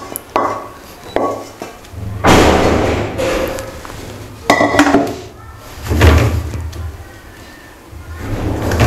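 Wooden spatula scraping and tapping thick barfi mixture out of a pan onto a steel plate, with knocks and thuds as the pan is handled and set down on the stone counter, then the spatula scraping as it spreads the mixture across the plate.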